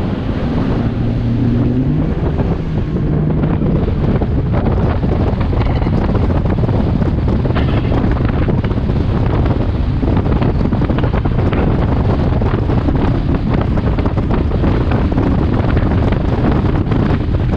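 Bass boat running at speed: the outboard motor climbs in pitch over the first couple of seconds as it accelerates, then heavy wind buffets the microphone over the steady motor and water noise.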